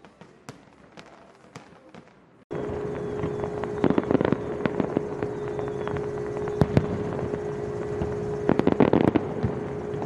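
Fireworks going off: faint pops and crackles at first, then, about two and a half seconds in, much louder sharp bangs and crackling bursts, several in quick clusters, over a steady rushing noise with a low droning tone.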